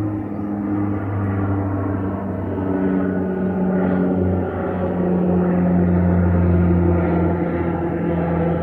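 Regional Express Saab 340B turboprop climbing out after takeoff, its twin propellers giving a loud, steady low hum with a rushing engine noise underneath, slowly shifting in pitch and growing louder.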